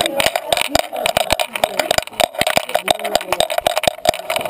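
Camera in a dog-collar mount rattling and knocking as the Great Dane moves about, a rapid irregular run of clicks.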